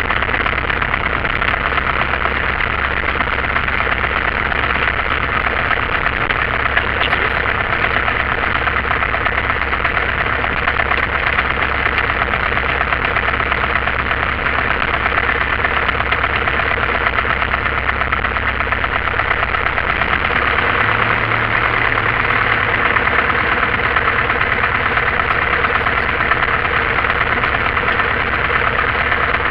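Light aircraft's single piston engine idling, heard from inside the cockpit, as the plane taxis after landing. It is a steady drone, and its low note changes about twenty seconds in.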